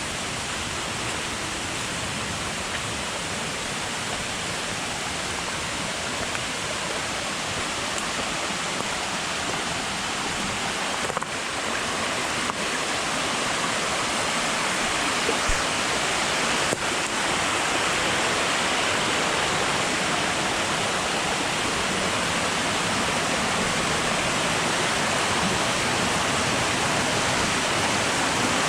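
Steady rush of flowing, falling water, growing a little louder about halfway through.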